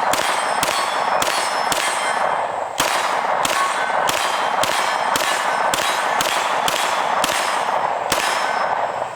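A Smith & Wesson competitor-series 9mm pistol fired in a steady string, about two to three shots a second, with a metallic clanging ringing on between the shots. There is a brief break a little under three seconds in before the shooting resumes.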